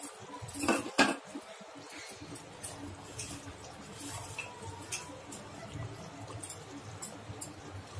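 Small clicks and light splashes as garnish is dropped by hand into a pot of liquid chicken gravy, with two sharper clicks about a second in, then faint scattered ticks over a low steady hum.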